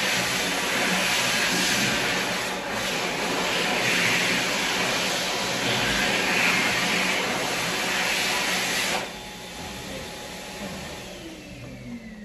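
Electric hand dryer blowing with a loud, steady rush of air. It cuts off suddenly about nine seconds in, and its motor whines down in pitch as it spins to a stop.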